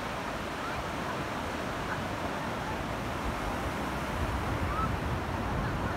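Ocean surf breaking along the shore, a steady wash of waves, with wind rumbling on the microphone that grows stronger in the second half.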